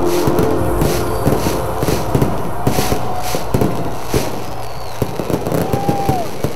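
Fireworks going off: a rapid run of sharp bangs and crackles, with a brief falling whistle near the end.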